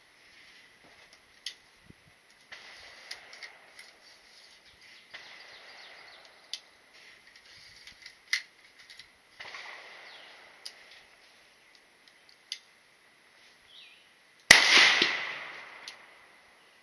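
A single gunshot about three-quarters of the way in: a loud crack that rings away over about two seconds. Before it there are scattered faint sharp cracks and soft hissing, and a faint steady high tone runs underneath.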